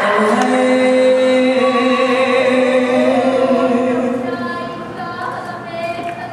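A girl's solo voice chanting a Hawaiian oli, drawing out long held notes with a quivering vibrato; after about four seconds the notes become shorter and somewhat quieter.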